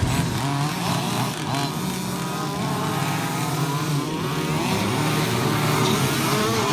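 Several 1:5-scale petrol RC off-road cars' small two-stroke engines revving up and easing off, their pitches overlapping and wavering.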